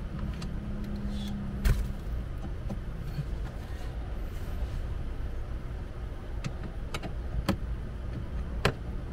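Sharp clicks and knocks of a screwdriver and hands working the plastic trim of a car's shifter console, the loudest about two seconds in and a few more near the end, over a steady low rumble.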